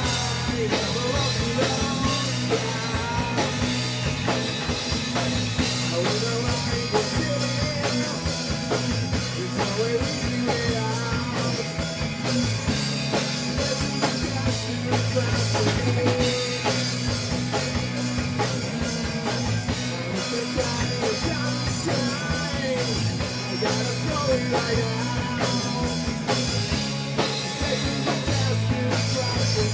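A rock band playing live, with a drum kit keeping a steady beat under the rest of the band without a break.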